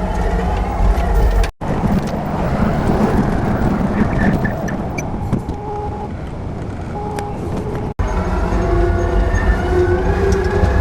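Loader's engine running steadily, broken by two abrupt cuts; a higher whine rises near the end.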